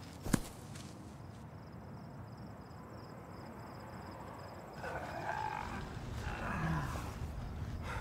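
A single sharp blow just after the start, then a low moaning sound for a couple of seconds past the middle.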